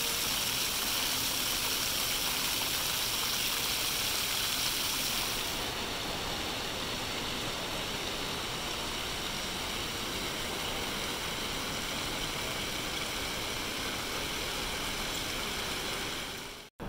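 Steady rushing and splashing of an indoor water fountain in a mall atrium, a little brighter for the first five seconds or so, then softer; it cuts out abruptly at the very end.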